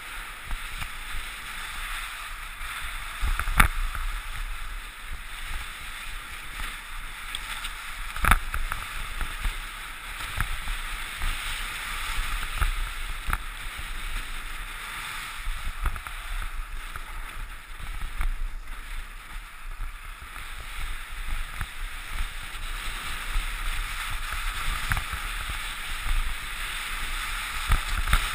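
Skis sliding and carving on packed snow: a steady swishing hiss, with now and then a sharp knock, the loudest about three and a half and eight seconds in.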